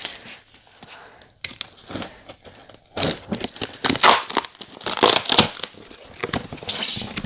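Box cutter slitting packing tape on a cardboard box, with tape tearing and cardboard flaps scraping and rustling as they are pulled open. The crinkling and tearing grow busier and louder about three seconds in.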